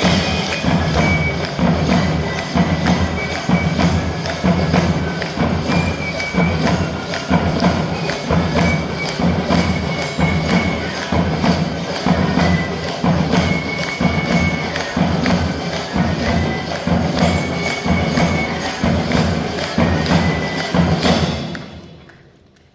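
School drum band playing: drums beat a steady, driving rhythm with crisp high strokes on the beat, and short high held notes sound now and then above them. The playing stops and dies away about 21 seconds in.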